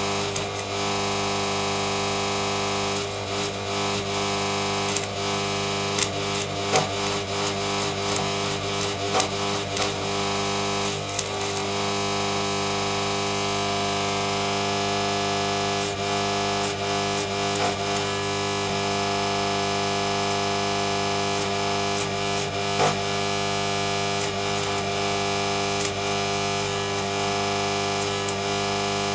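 Stick-welding arc from a Draper MMA inverter welder, a steady buzzing crackle with sharp pops here and there as the rod burns.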